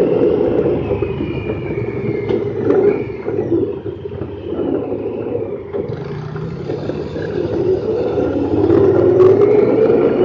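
Honda Pioneer 1000-5 side-by-side's parallel-twin engine and drivetrain running at slow trail speed, heard from inside the open cab. The sound eases off about four seconds in and builds again near the end.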